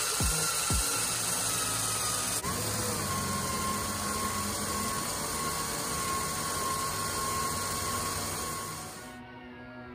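A power tool running with a steady high whine over a hiss; its pitch drops slightly about two and a half seconds in. Near the end the tool sound gives way to guitar music.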